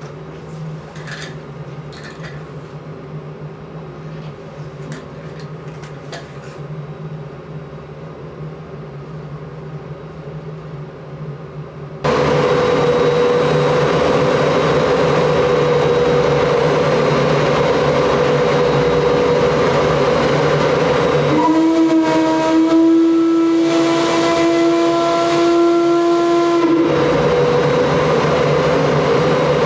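Boiler-plant emergency steam whistle, its valve opened by a lever and cable, sounding one steady blast of about five and a half seconds a little past the middle: a single low tone with overtones, a test signal. Before it a quieter steady hum; about twelve seconds in, a loud steady noise starts suddenly and runs on under and after the blast.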